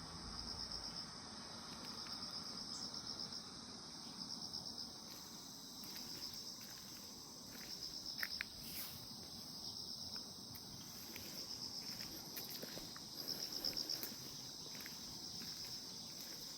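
Grass insects such as crickets chirping in a steady chorus: a continuous high trill with louder pulsed stretches every few seconds. A few faint clicks or taps are mixed in, most clearly about halfway through and near the end.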